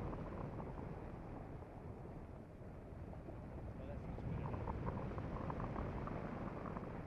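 Wind rushing over the microphone of a pole-mounted camera in paragliding flight: a steady low rumble that eases a little a couple of seconds in and grows again about four seconds in.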